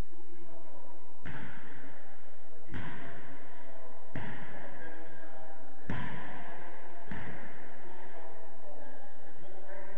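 A futsal ball bounced on a sports hall floor: five sharp thuds about one and a half seconds apart, each echoing in the hall.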